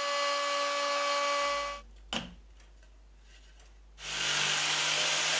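AEG MF 1400KE router running steadily while cutting a circle in a plywood insert plate. It stops abruptly just under two seconds in, then comes a single knock and a short lull. About four seconds in, a router starts running again.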